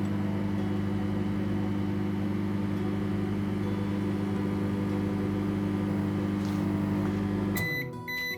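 Microwave oven running with a steady hum while heating water, then shutting off near the end and starting to beep: the one-minute cycle is done.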